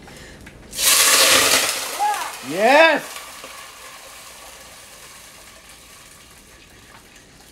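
Water poured into a pot of hot oil sizzles loudly for about a second, then dies down to a faint, fading hiss.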